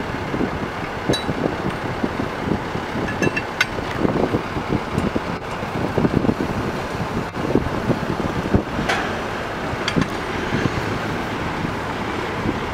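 Wind buffeting the camera's microphone: a steady rush broken by irregular low rumbling gusts, with a few faint clicks.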